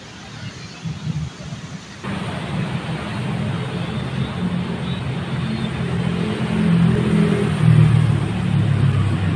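Street traffic sound picked up by a smartphone's microphone while walking at night, with a motor vehicle's engine growing louder in the second half. About two seconds in, the sound cuts abruptly to a louder, brighter recording as playback switches from the Infinix Hot 11s NFC's microphone to the Realme Narzo 50A's.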